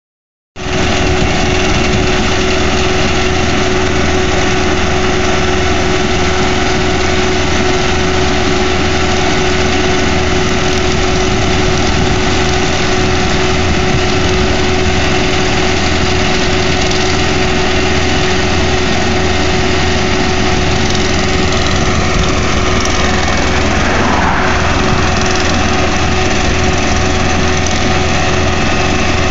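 Diesel engine of a Ditch Witch RT115 Quad tracked trencher running steadily under load as its vibratory plow pulls conduit through the ground, with a constant hum and low rumble.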